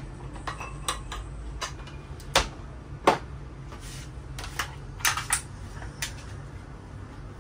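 Metallic clicks and clacks of a Beretta Silver Pigeon over-under 12-bore shotgun being put together, its barrels fitted onto the action and the gun closed. About half a dozen sharp clicks, the loudest about three seconds in and a quick run of them about five seconds in, over a low steady hum.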